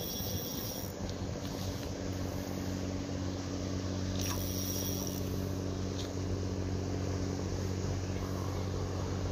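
An engine running steadily at constant speed, a low drone, with a couple of light clicks in the middle.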